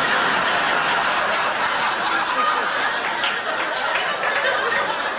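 A group of people laughing together, a dense, sustained wash of laughter that slowly dies down near the end, the reaction to a fluffed line.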